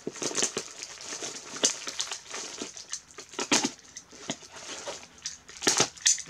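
Packaging being unwrapped by hand: irregular crinkling and crumpling rustles, with a louder flurry near the end.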